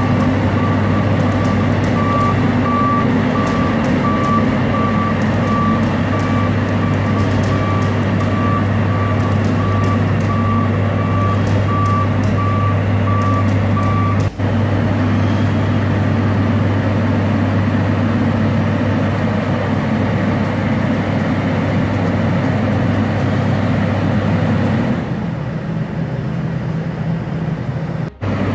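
Asphalt paver's diesel engine running steadily, with a warning alarm beeping about once a second over it. The beeping stops about halfway, and the engine note drops lower near the end.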